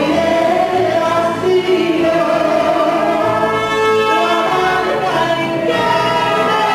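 Mariachi music: a woman sings lead into a microphone, backed by trumpet, violins and guitarrón, with long held notes.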